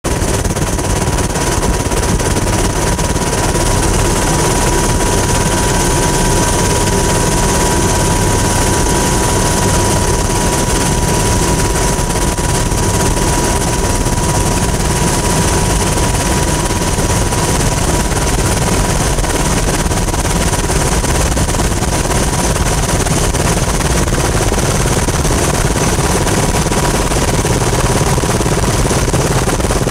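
Turbine helicopter in flight: a loud, steady engine and rotor noise with a constant high whine running through it.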